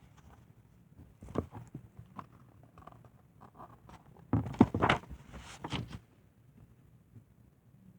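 Paper pages of a picture book being turned and handled: scattered rustles and light clicks, the loudest cluster about halfway through.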